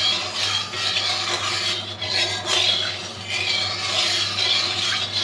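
Metal spatula stirring and scraping hot oil around a metal karahi: a scratchy swishing that rises and falls with each stroke and starts and stops abruptly with the stirring.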